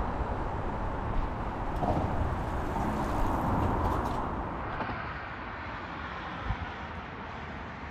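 Steady hum of road traffic with a low rumble, turning quieter and duller about halfway through.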